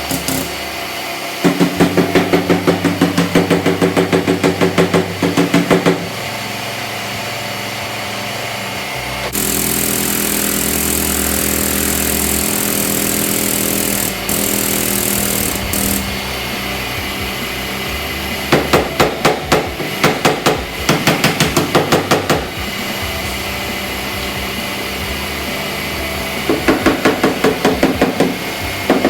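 Background music with sustained tones that shift every few seconds, and a fast, even beat that comes in three times and drops out between.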